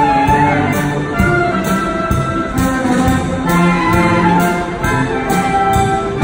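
A military band of clarinets and brass playing a tune live, with several held notes sounding together.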